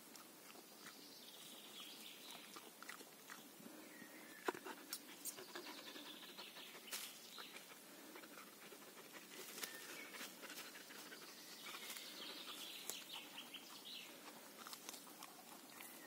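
Faint rustling and scattered clicks of a Samoyed nosing and chewing through leafy ground plants, with faint chirping in the background.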